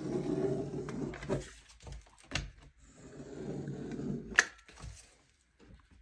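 Dripless caulk gun being worked along a window frame: two stretches of low rubbing noise broken by sharp clicks of the gun's trigger and rod, the loudest click about four and a half seconds in.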